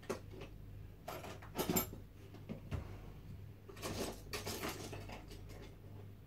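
Small clinks and clatter of objects being handled by hand, in two bunches of quick clicks about a second in and again about four seconds in, over a low steady hum.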